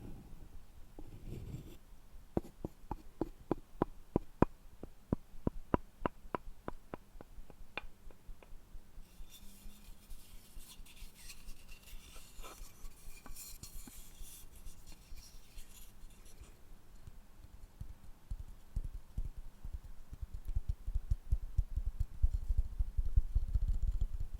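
Wooden objects handled close to the microphone: a run of light, quick taps at about four a second, then a few seconds of scraping and rubbing on wood, then dull low knocks that grow louder near the end.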